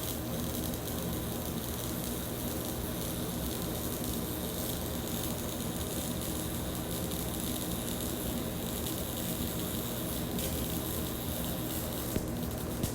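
Short-circuit MIG arc in STT (surface tension transfer) mode laying a root pass on 6-inch Schedule 40 carbon steel pipe with .045 ER70S-6 wire: a steady, even sizzle.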